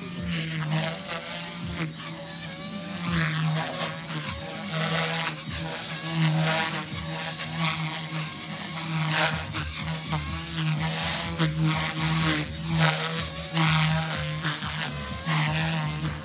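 Small electric OXY RC helicopter flying 3D aerobatics: the motor and rotor whine sweeps up and down again and again over a steady low drone, swelling and fading as the helicopter flips and tumbles.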